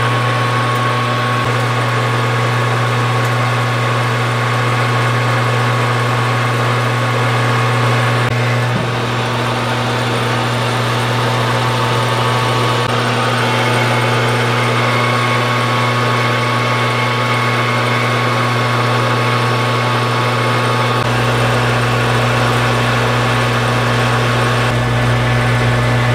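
Metal lathe running steadily while taking turning passes down the outside diameter of a metal bar, a constant motor hum with the hiss of the cut over it.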